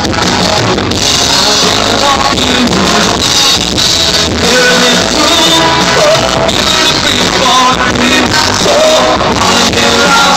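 Live rock band playing on stage: electric guitars and drums with a singer, loud and continuous.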